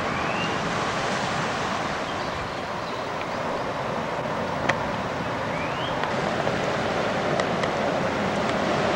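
Surf washing over a cobblestone shore, a steady rush of water. Two short rising whistles, one at the start and one past the middle, and a sharp click about halfway through.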